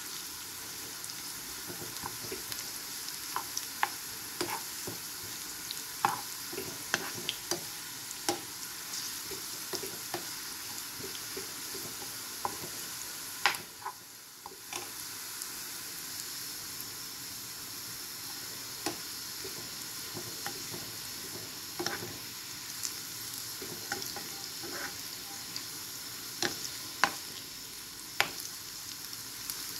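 Food sizzling in hot oil in a cooking pan, with frequent clicks and scrapes of a utensil stirring against the pan. There is a brief lull about fourteen seconds in.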